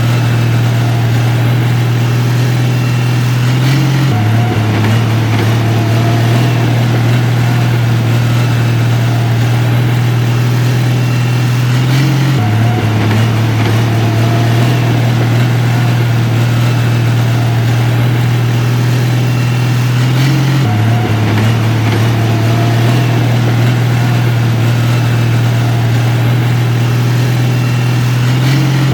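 Heavy construction machine engine running steadily, a loud low drone whose pitch steps slightly about every eight seconds.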